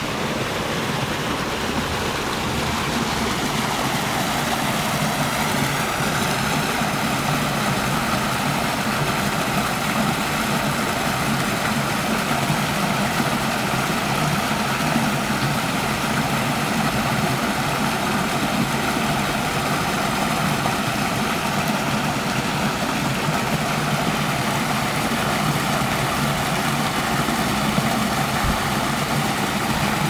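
Water rushing steadily over a small rocky cascade.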